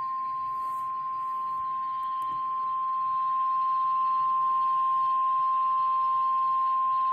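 NOAA Weather Radio warning alarm tone, the single 1050 Hz tone that signals a warning message is about to be broadcast. One steady high-pitched tone over a faint hiss, growing a little louder about three seconds in.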